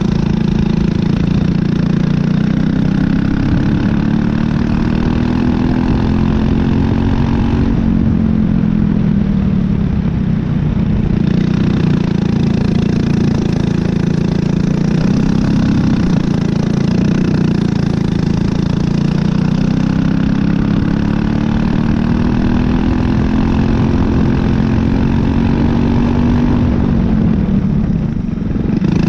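Briggs & Stratton LO206 single-cylinder four-stroke kart engine running hard, heard close up onboard the kart. Its pitch climbs steadily as the kart gains speed, drops off about eight seconds in when the throttle is lifted, then climbs again and falls away near the end.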